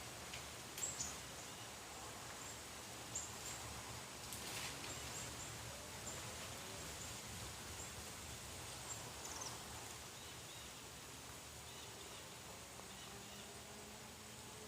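Light rain falling steadily, a faint even patter with a few sharper taps and some faint high chirps over it.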